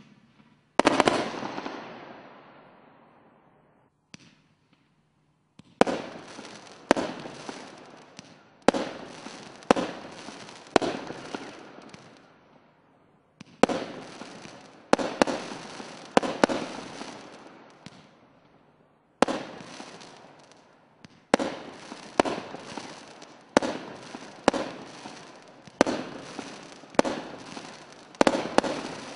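Multi-shot consumer fireworks battery (cake) firing: one sharp report about a second in that fades slowly, then after a pause a run of shots about one a second, each a sharp report with a fading, crackly tail, broken by two short pauses.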